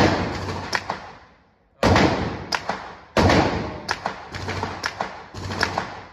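Pistol shots fired one at a time, about a second or two apart, each a sharp crack followed by a long echo, as in an indoor range. Fainter shots from other lanes sound in between.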